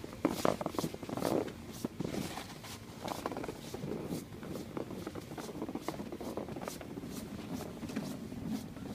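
Footsteps crunching in fresh snow at about two steps a second, over the steady scrape of a yellow plastic sled being pulled across the snow.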